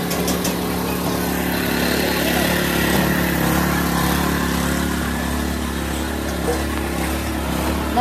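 Busy street-market ambience: crowd chatter over a steady engine hum.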